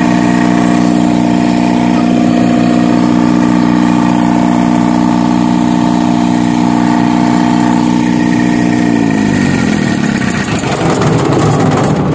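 Reconditioned diesel engine of a Denyo generator set running at a steady speed. About nine seconds in, its pitch falls as the engine slows, and the even note breaks up into a rougher, uneven sound.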